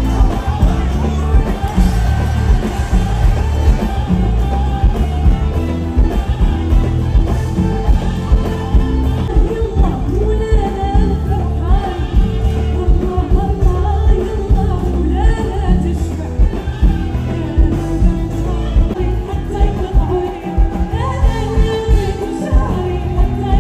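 Woman singing live into a microphone over a full band with heavy bass and a steady beat, heard through a concert sound system.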